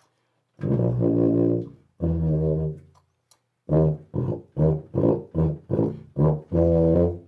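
Červený tuba played through a deep-cupped 3D-printed PLA mouthpiece: two held low notes, the second lower, then after a short pause a run of short detached notes ending on a longer one.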